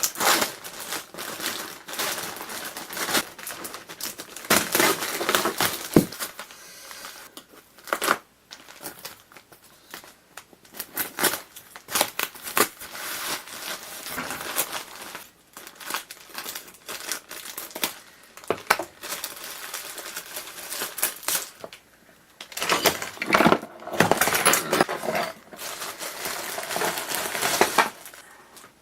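Plastic packs of small 5-volt relays crinkling and rustling as they are handled and opened, in irregular bursts with a few sharp clicks.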